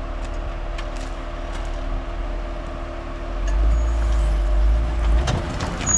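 Four-wheel drive's engine running at low revs as it crawls over rocks; its deep rumble grows louder about three and a half seconds in. Scattered knocks and clicks sound throughout.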